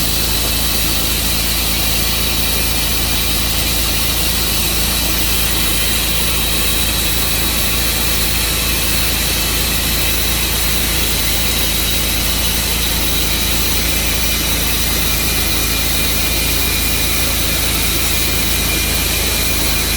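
Portable sawmill's engine running at a steady, unchanging speed, a loud constant mechanical noise with a faint high whine.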